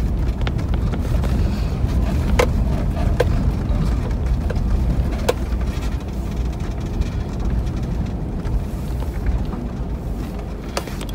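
Car driving slowly over a rough, stony dirt lane, heard from inside the cabin: a steady low rumble of engine and tyres, with a few sharp clicks.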